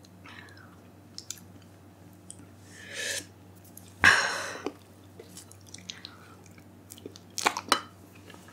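Mouth and chewing sounds, a sharp breath about three seconds in, then a loud puff of breath about four seconds in, from someone reeling from the burn of a Paqui One Chip Challenge chip. A metal spoon clinks against a ceramic mug in a quick cluster near the end.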